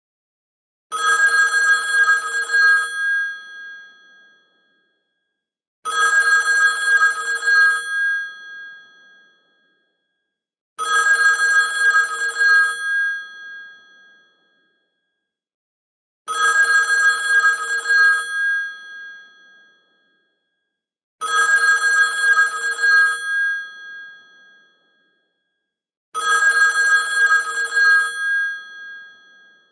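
Phone ringtone with a telephone-bell-like ring: six rings of about two seconds each, repeating roughly every five seconds, each ending in a short fading tail.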